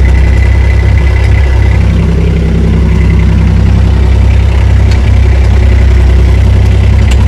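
Tractor engine running steadily at low revs, heard from inside the cab as a loud, even, deep hum.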